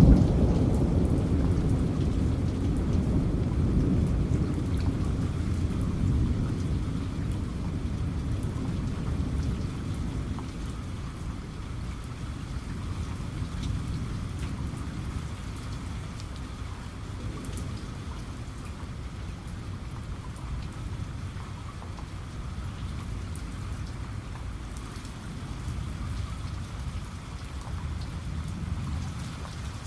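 Steady rain falling, with a low roll of thunder that fades away over the first several seconds and a faint rumble again near the end.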